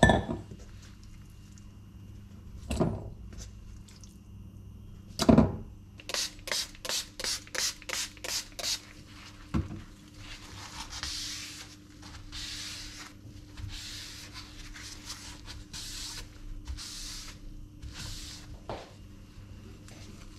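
A few knocks as things are set down on the counter, then a quick run of about nine squirts from a trigger spray bottle onto a bamboo cutting board, followed by a cloth wiping the wet board in strokes about once a second.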